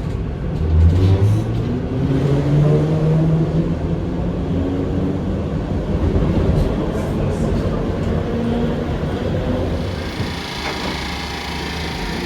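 Heritage electric tram running, its motor hum rising in pitch as it picks up speed. A hiss comes in near the end.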